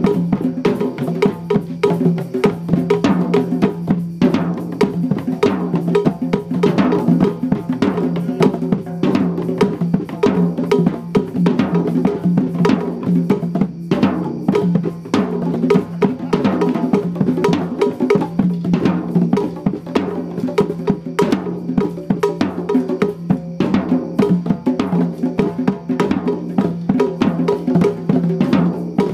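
Drum circle: many hand drums, a conga among them, played together in a steady, dense rhythm.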